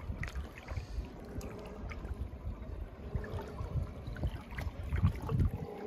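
Floodwater sloshing and splashing in uneven surges as a person wades through it in waterproof waders.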